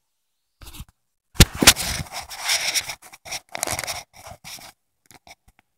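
Handling noise from a phone held close: its microphone scraping and rubbing against clothing in irregular bursts. Two sharp knocks come about a second and a half in.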